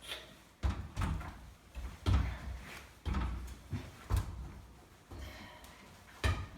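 Irregular knocks and thuds, about eight in a row, as a manufactured stone wall panel is set against the wall and adjusted into place.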